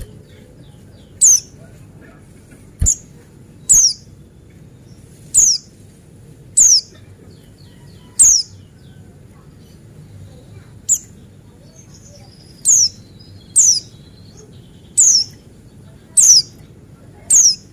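Buxtoni white-eye (pleci) giving sharp, high, steeply falling calls, about a dozen of them, roughly one every second, with a faint twitter in between near the middle.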